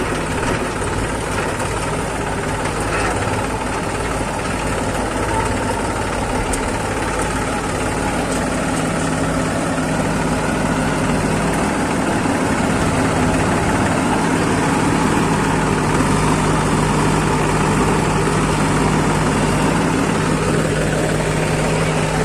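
Swaraj 834 FE tractor's diesel engine running steadily with a low, even engine note, heard from the driver's seat; the sound shifts a little near the end as the tractor moves off.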